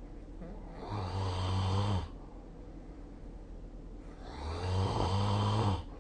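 A sleeping person snoring: two low-pitched snores about three and a half seconds apart, each lasting about a second and a half.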